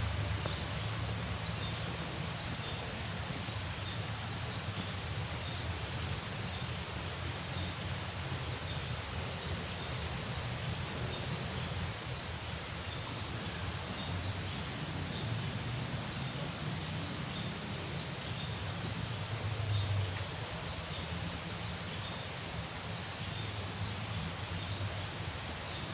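Riverbank ambience: a steady even rush with a low rumble underneath, and a faint high chirp repeating about once a second.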